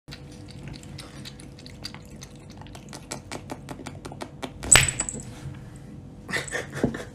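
Soft clicks, a few a second, then a single sharp clink of a cut-crystal glass, which rings briefly with a thin high tone about two-thirds of the way through.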